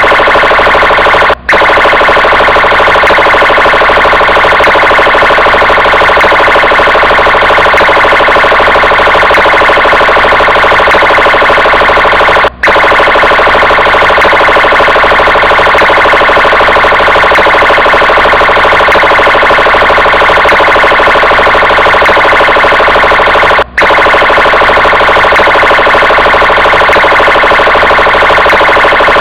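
Brazilian police car siren sounding loudly and without a break, except for three brief dropouts about eleven seconds apart.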